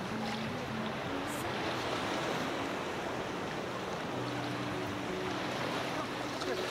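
Shallow sea water washing and lapping around the camera, a steady rush of small waves breaking in the shallows.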